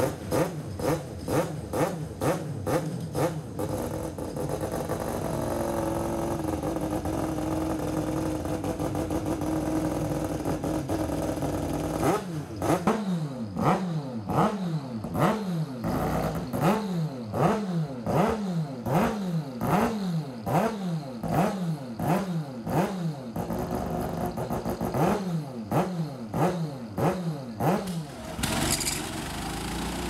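Race motorcycle engine, just fired on a roller starter, running at held raised revs. Then a race motorcycle engine is revved in a long run of short throttle blips, more than one a second, each rising and falling in pitch.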